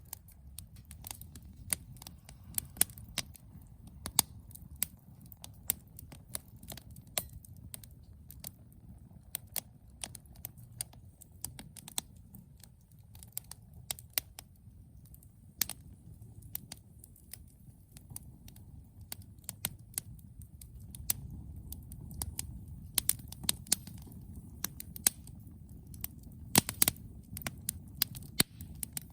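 Burning wood crackling and popping in a Firebox Freestyle fire pit: irregular sharp snaps, some loud, over a low steady rumble.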